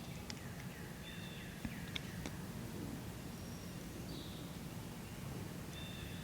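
Woodland ambience: a steady low background rumble with several short, high bird chirps scattered through it and a couple of faint ticks.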